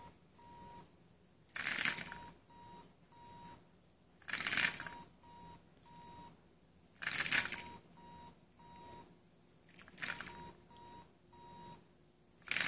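A small homemade microcontroller robot cycling through a programmed routine: a short burst as its two small DC motors run and rattle the chassis on a wooden floor, then two short electronic beeps from its piezo buzzer. The cycle repeats about every two and three-quarter seconds, four times over.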